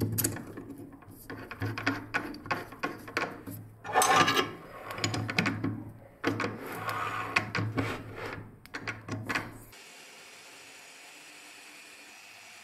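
Metal clicks, rattling and scraping from a drill press's keyed chuck as a brad-point drill bit is fitted and the chuck is tightened by hand. The handling stops abruptly about ten seconds in, giving way to a faint steady hum.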